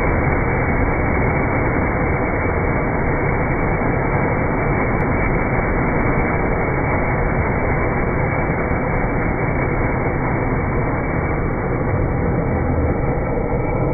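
Ground fountain firework spraying sparks, a steady rushing hiss that stays even throughout.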